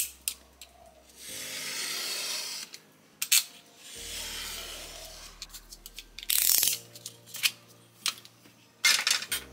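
Utility knife blade drawn along a steel ruler, slicing through heavy watercolour paper in two long hissing strokes. It is followed by a louder brief rustle of the paper and several sharp clicks and taps.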